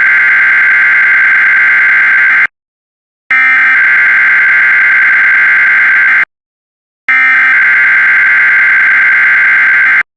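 Emergency Alert System SAME header: three bursts of digital data tones, each about three seconds long, with a brief silent gap between them.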